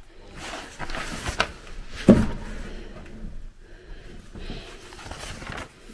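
Rustling and handling of old, dry magazine and newspaper pages as the magazine is opened, with a few light knocks and one dull thump about two seconds in.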